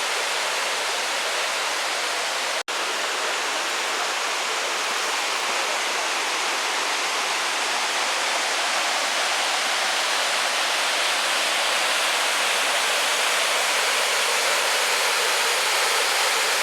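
Steady rush of a waterfall's falling water, dropping out for an instant about two and a half seconds in.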